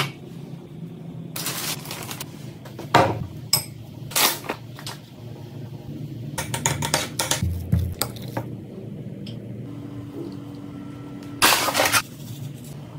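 Kitchen food-prep sounds: a knife sawing through a loaf of bread, then scrapes and clinks of a spoon in a ceramic bowl, heard as short bursts a second or two apart with a louder one near the end. A low steady hum runs underneath.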